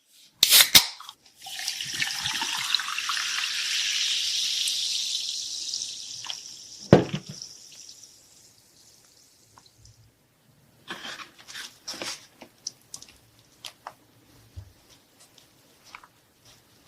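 A drink poured into a cup: a steady pouring hiss for about five seconds that fades away, between sharp clicks of handling. Then a few light taps and clicks.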